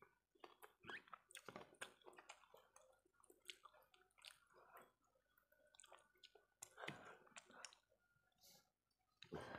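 Quiet, close-up wet chewing and lip smacks of a person eating rice and fish curry with their fingers, an irregular run of soft clicks and squelches, with fingers squishing rice on the plate.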